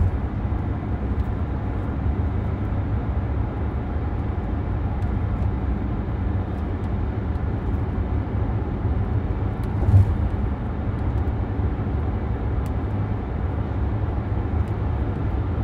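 Steady low rumble of a car on the move, heard from inside the cabin, with one short thump about ten seconds in.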